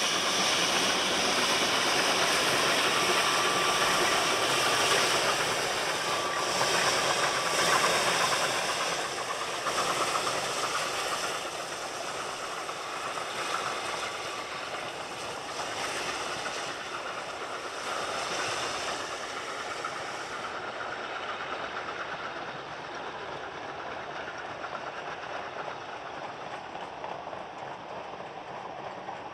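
Narrow-gauge steam locomotive working hard as it passes with a long goods train, its exhaust and steam loudest for the first eight or nine seconds with a few brief high squeals. The wagons then clatter past on the rails, more quietly.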